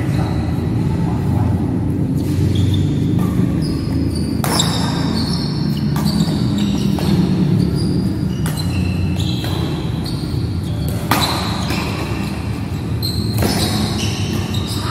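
A badminton doubles rally: rackets strike the shuttlecock about ten times at an irregular pace, and court shoes squeak briefly on the floor between strokes. A steady low rumble runs underneath.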